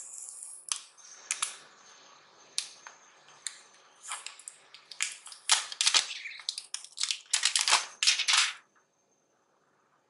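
Thin plastic protective film crackling and crinkling as it is peeled off a smartphone's glossy back and handled, with a dense run of loud crackles from about four seconds in that cuts off suddenly near the end.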